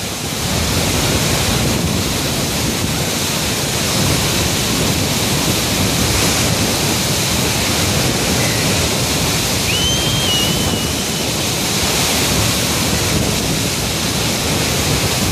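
Dam outlet tube releasing about 21,400 cubic feet per second: a steady, loud rush of water pouring out under high flow.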